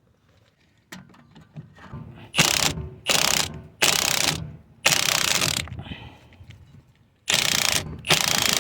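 Ratchet wrench being cranked in about six short runs of clicking, starting about two seconds in with a pause past the middle.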